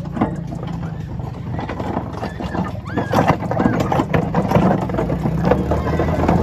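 Quad ATV towing a train of plastic barrel cars: the engine runs with a steady low rumble under a continuous clatter and rattle of the barrel carts jolting along a dirt track.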